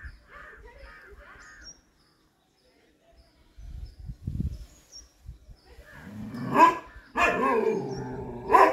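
Chippiparai dog barking loudly three times near the end, the middle bark drawn out, aimed up at monkeys in the trees. Crows caw a few times just before, at the start.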